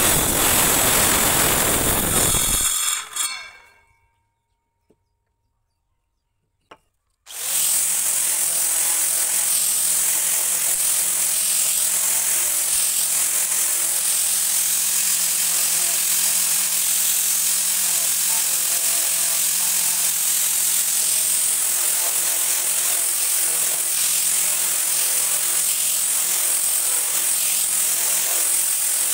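Maktec circular saw cutting through a piece of wood, then running down about three seconds in. After a few seconds of silence, an angle grinder fitted with a sanding disc starts running steadily against the wood, with a high whine, for the rest of the time.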